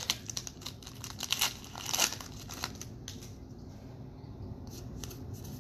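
Wrapper of a trading-card pack crinkling and tearing as it is opened, dense for about the first three seconds, then sparser rustles and clicks as the cards are handled.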